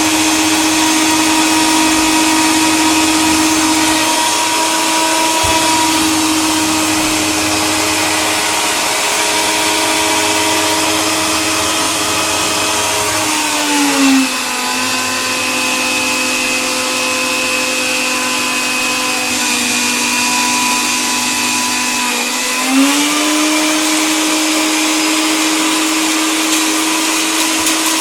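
Electric coffee grinder motor running with a steady whine. About halfway through its pitch drops a little and holds lower for some nine seconds, then rises back to where it was.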